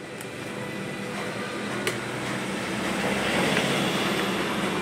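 A steady rumble that swells a little past the middle, with one light click about two seconds in from a screwdriver working on a plastic car door trim panel.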